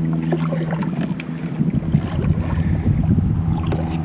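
Wind buffeting the microphone over a steady low hum, with scattered light clicks and knocks.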